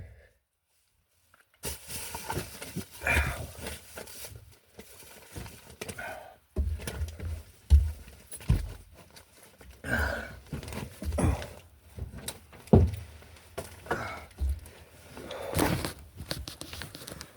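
A person crawling and climbing through an attic: irregular thumps and knocks with rustling in between.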